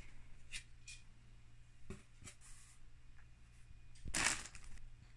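Faint rustling as the plastic ingredient bags and quilted foil insulation liner of a meal-kit box are handled, with a few light crinkles and one brief louder crinkle about four seconds in.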